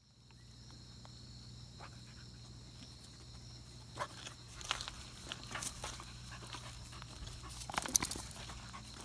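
A beagle sneezing: a loud, short, sharp burst just before the end, after a few fainter short sharp sounds.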